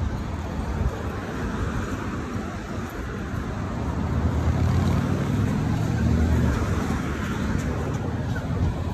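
Road traffic passing on a busy city street, a low rumble that swells in the middle and eases off again.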